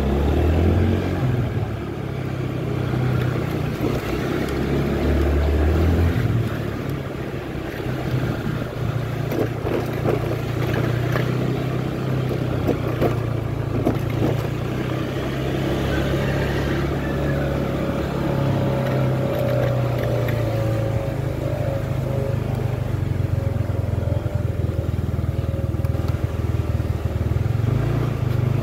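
Motor scooter engine running steadily while riding, with a deeper rumble in the first few seconds. Short knocks and rattles come in bunches around the middle as the scooter goes over the rough, broken road surface.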